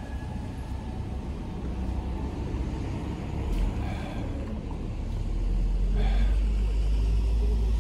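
Steady low rumble that grows louder and heavier about five seconds in.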